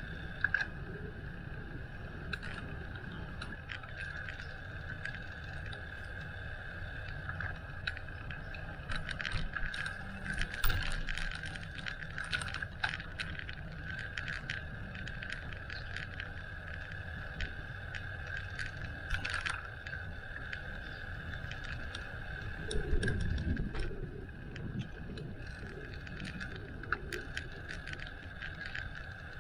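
Bicycle being ridden: a steady low rumble under a constant high hum, with frequent rattles and clicks from the bike over bumps. The rattling is busiest around ten seconds in, and there is a heavier jolt about 23 seconds in.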